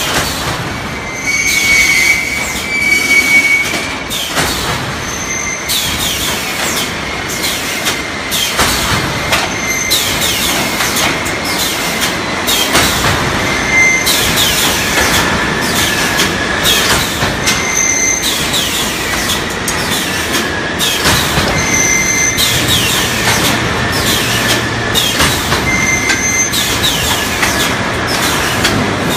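3D EPS panel wire-mesh welding line running: a continuous mechanical clatter of repeated metallic strokes, roughly one a second, with short high squealing tones over it.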